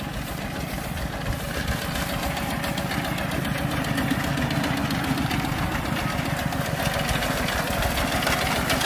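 Small 7-horsepower single-cylinder diesel engine of a walk-behind-style grass-cutting machine running steadily under load as it mows through tall grass, with a fast, even throb.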